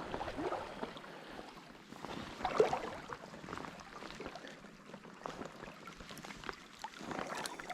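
Fast trout-stream water running, with scattered small splashes and ticks.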